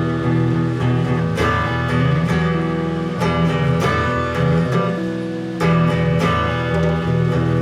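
Live guitar strumming chords in an instrumental passage with no singing, each strum ringing on into the next.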